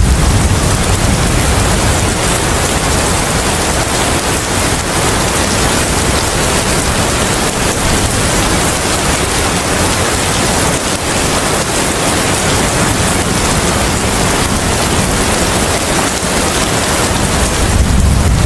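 Steady rain, a dense, even hiss that stays unchanged throughout.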